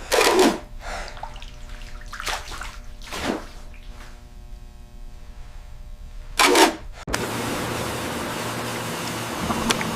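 Several short rushing water whooshes, about four, over a faint sustained tone. About seven seconds in they cut suddenly to a steady dense rushing noise.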